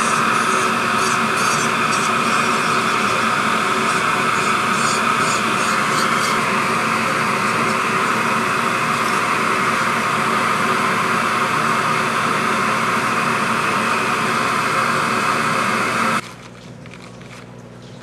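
A loud, steady mechanical noise with a faint hum under it, even and without rhythm, which cuts off abruptly about sixteen seconds in, leaving only a quiet low hum.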